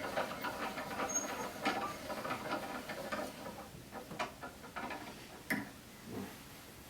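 Crank handle of an M100 mortising jig being turned, a quick run of small metal clicks and ticks that thins out toward the end, with one sharper click about five and a half seconds in.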